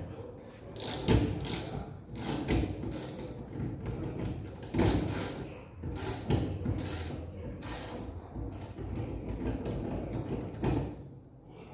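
Metal tools and washing-machine parts clicking and clanking in irregular clusters of sharp knocks, as the machine's mechanism is worked on by hand.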